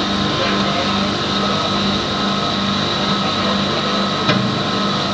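Ashirwad pulverizer grinding mill running steadily, a constant high whine over a regularly pulsing hum. There is a single brief knock about four seconds in.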